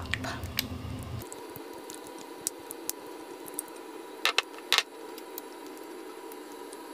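Rubber spatula scraping and tapping against a glass baking dish while a soft topping is spread over fish: scattered light clicks, with two sharper taps about four and a half seconds in, over a faint steady hum.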